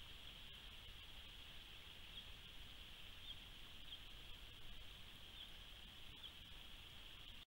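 Near silence from a trail camera: a faint steady hiss, with a few short, faint high chirps scattered through.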